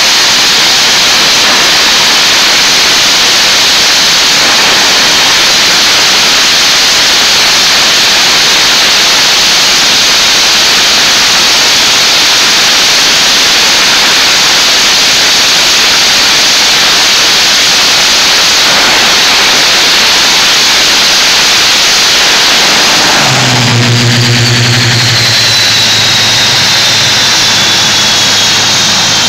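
F-18 Hornet's jet engine running at high power during a ground afterburner test: a loud, steady jet noise. About 23 seconds in it gives way to jets passing overhead, with a high whine falling in pitch.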